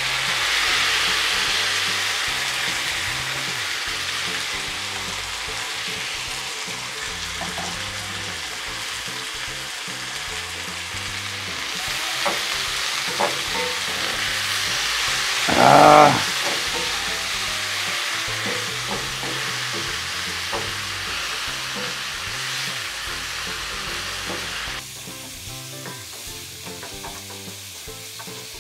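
Chopped tomatoes and green peppers sizzling loudly as they go into hot oil and onions in a frying pan, then frying steadily while a wooden spatula stirs them; the sizzle drops in level near the end. One brief pitched squeak, the loudest moment, about sixteen seconds in.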